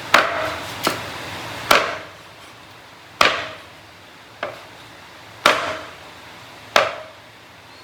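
Knife chopping through fried duck on a wooden cutting board: five hard chops and two lighter ones at uneven intervals, each with a short ring.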